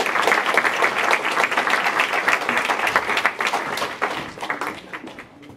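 Audience applauding, dense clapping that starts to thin out and fade about four seconds in.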